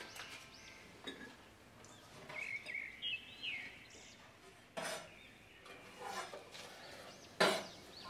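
A few sharp kitchen knocks and clinks, like utensils or a knife on a board, the loudest near the end, with faint bird chirps in the background.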